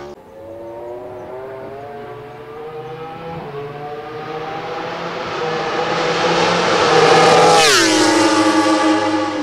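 Suzuki MotoGP prototype racing motorcycle with an inline-four engine, accelerating toward and past the listener at speed. The engine note climbs in pitch and grows louder, then drops sharply as the bike goes by about three-quarters of the way in.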